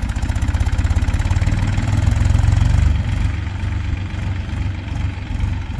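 Heavy diesel engine running with a fast low throb, louder about two to three seconds in, then easing back.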